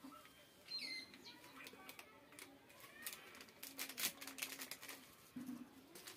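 A small plastic sachet crinkling in the hands as it is torn open, in short crackly rustles that bunch up around the middle. A bird gives a short falling call about a second in, and birds call faintly in the background.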